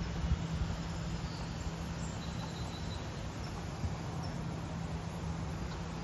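Steady outdoor background noise with a constant low hum and a rushing haze, and a few faint, thin, high chirps near the middle.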